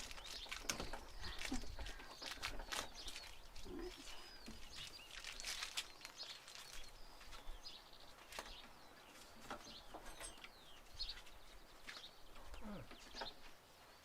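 Birds chirping and calling in short bursts throughout, with scattered light clicks and knocks.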